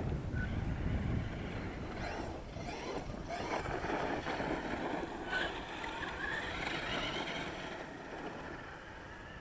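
Losi LST XXL radio-controlled monster truck driving over dirt, its engine revving up and down several times and growing fainter near the end.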